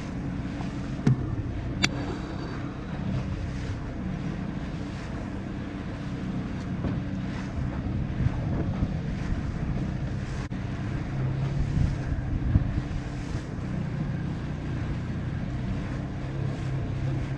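Boat under way: a steady low engine hum under wind buffeting the microphone and water rushing and splashing at the bow, with a couple of sharp knocks about one and two seconds in.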